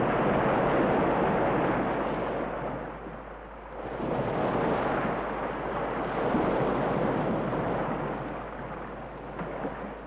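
Heavy surf: breaking ocean waves rushing and crashing in two long swells. The first dies away about three seconds in, and the second builds about four seconds in and fades near the end.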